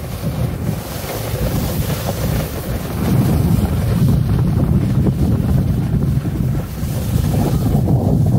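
Wind buffeting the microphone as a snowboard runs down a groomed slope, with the board scraping over the packed snow. It gets louder about three seconds in.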